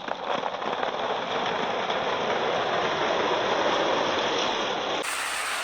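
Many marbles rolling and clattering down a wooden marble run, a dense continuous rattle with sharper clicks in the first second; the sound changes abruptly about five seconds in.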